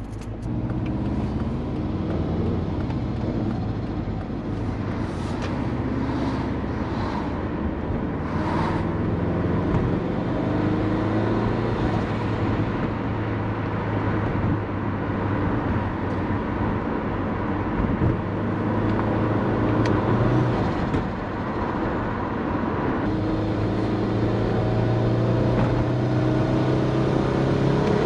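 Turbocharged Subaru EJ20 flat-four of a Forester fitted with a big GT35 turbo and an automatic gearbox, driving under throttle. The engine pitch climbs slowly near the start and again near the end. The pull is slow to come on boost, which the driver puts down to the GT35 turbo paired with the automatic.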